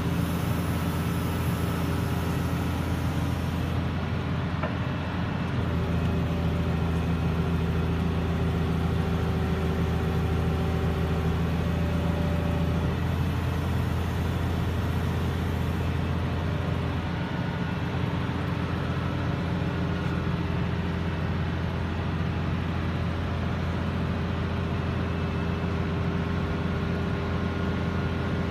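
Caterpillar 330CL excavator's C-9 diesel engine running steadily as the boom and stick are worked hydraulically, its note shifting a little at several points as the load changes.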